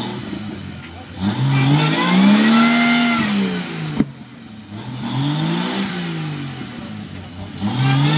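A Jeep's engine revving hard in surges, its pitch climbing and falling away three times, as it struggles stuck in a mud bog. A single sharp knock about halfway through.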